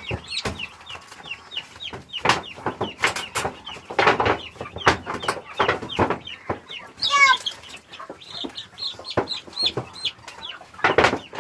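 Chickens clucking and squawking, with many short, high peeps repeating throughout and a louder squawk about seven seconds in, as the birds are grabbed and chased.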